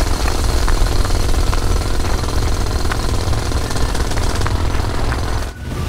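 Drilling sound of a big rotary drill bit boring through rock: a loud, steady rattling rumble with rock breaking up. It drops away briefly near the end.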